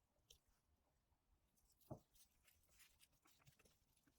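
Near silence: room tone with a few faint light clicks and one soft tap about two seconds in.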